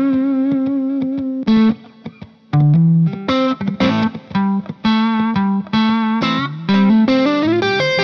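Background music led by a guitar playing a line of separate notes, with a short quieter gap about two seconds in.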